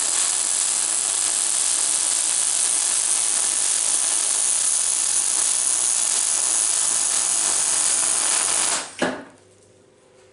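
Electric welder running a weld bead on steel: a steady hiss that cuts off about nine seconds in, followed by a short knock.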